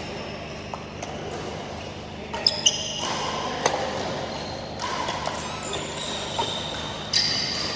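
Indoor badminton play: rackets striking shuttlecocks with sharp pops, several times, and court shoes squeaking on the synthetic court mat, most clearly a few seconds in and near the end, all echoing in a large hall.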